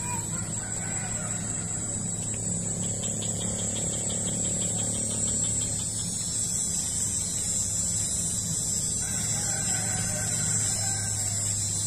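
Steady background drone: a constant low hum under an unbroken high-pitched insect buzz, with a few faint wavering calls in the distance.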